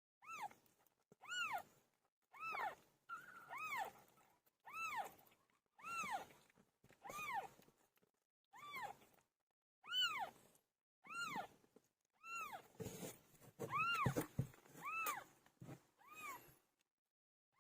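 A cat mewing over and over, about fourteen short, high-pitched calls that rise and fall in pitch, roughly one a second.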